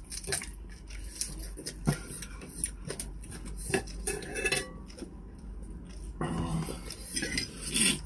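Knife and fork clicking and scraping on a plate as food is cut, in scattered short strokes.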